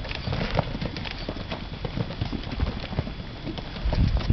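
Horse hooves galloping on packed dirt: a rapid, irregular run of hoofbeats that grows louder near the end.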